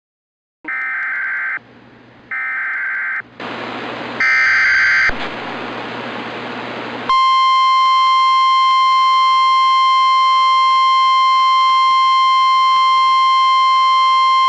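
Emergency Alert System broadcast: three roughly one-second bursts of the screeching SAME digital header, a hiss of static behind the last one, then from about seven seconds in the loud, steady 1050 Hz NOAA Weather Radio warning alarm tone.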